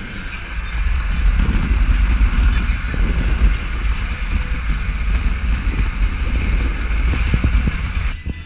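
Car cabin noise at freeway speed: a steady low rumble with road and wind hiss, cutting off abruptly near the end.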